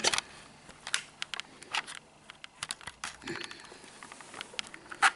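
Scattered light clicks and taps from handling an empty white cardboard box, with a sharper click near the end.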